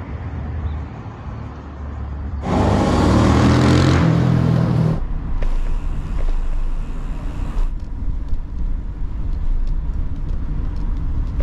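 Road traffic on a seafront road: a steady low rumble, with one loud vehicle passing about two and a half seconds in for a couple of seconds, then a fainter hiss of passing traffic.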